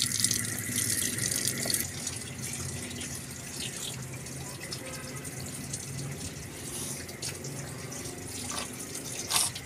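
Tap water running and splashing as raw chicken leg pieces are washed, with one sharp knock near the end.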